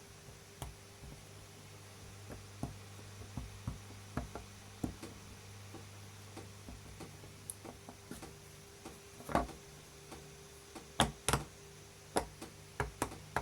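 Silicone pop-it fidget toy being pressed bubble by bubble: a string of soft, irregular pops, a few louder ones near the end, over the steady low hum of an electric fan.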